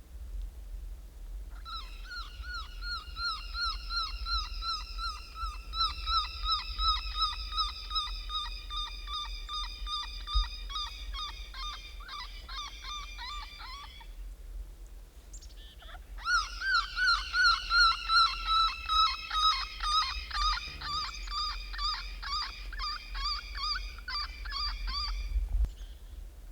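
Predator call sounding a high-pitched, pulsing animal distress cry that repeats a few times a second in two long series with a short pause between, used to lure in coyotes.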